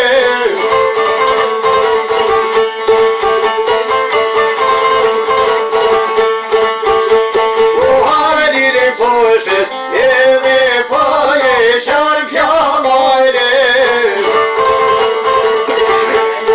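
Two long-necked Albanian folk lutes, a çifteli and a sharki, played together with quick plucked notes over a steady drone note.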